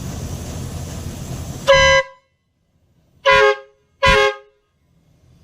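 Audew 12-volt electric air horn blown in three short, loud blasts, each sounding two notes at once. The first comes about a second and a half in, and the other two come close together near the end.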